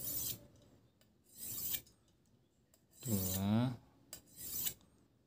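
Steel blade of a Drita Turkish slaughter knife drawn along an old metal file used as a sharpening rod: three short scraping strokes about a second and a half to three seconds apart, honing the unsharpened factory edge.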